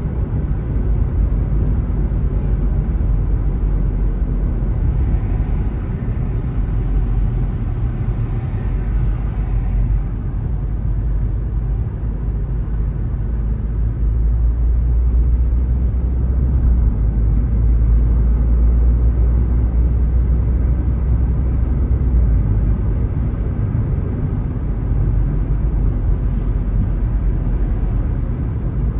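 Steady low rumble of road and engine noise inside a moving car, a little heavier through the middle stretch.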